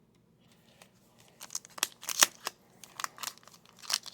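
Crinkling and crackling of a foil hockey-card pack wrapper being handled and torn open, in quick irregular bursts that start about a second and a half in.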